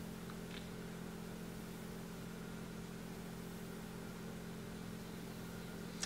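Quiet room tone: a steady low electrical hum with faint hiss, and a couple of faint light taps shortly after the start.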